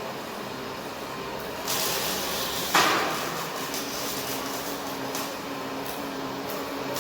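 Steady hum of workshop machinery on a robotic welding production line. Partway through, a hiss lasting about a second ends in one sharp, loud clunk that rings out briefly, and a few light clicks follow.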